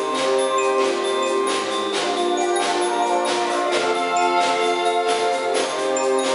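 Saxophone ensemble playing sustained chords, over a steady percussive beat of about two strokes a second.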